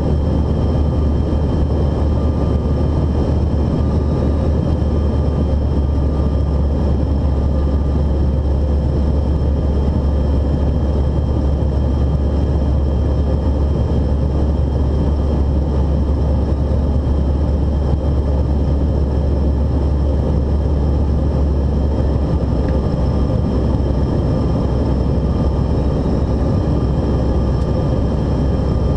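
Cabin noise of a Bombardier CRJ-900 regional jet in flight: a steady deep rumble of airflow and its rear-mounted turbofan engines, with thin steady whine tones above it.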